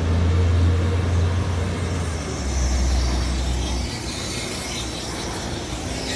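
Diesel engine of a Mack front-loader garbage truck running with a steady low drone. The drone drops away about four seconds in, leaving a fainter hiss.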